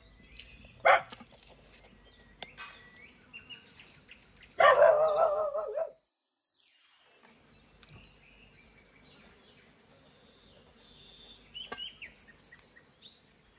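An animal's call: a short cry about a second in, then a loud, drawn-out, wavering cry of about a second and a half some four and a half seconds in.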